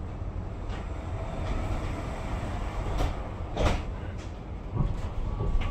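Tram running along its track, heard from inside the car: a steady low rumble with a few short knocks and rattles in the second half, the loudest a little past halfway.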